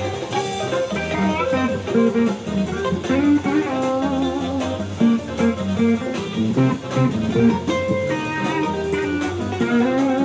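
Stratocaster-style electric guitar played through an amplifier: a run of single-note lead lines with string bends and vibrato.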